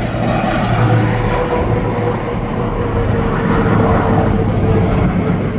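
An aircraft flying over: steady, loud engine noise with a faint tone slowly falling in pitch.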